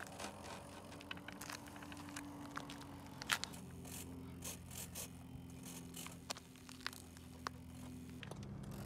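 Faint scattered clicks and light scrapes of hands handling a 3D-printed plastic RC glider on gravel, the sharpest click about three seconds in. Underneath is a steady low hum that grows louder near the end.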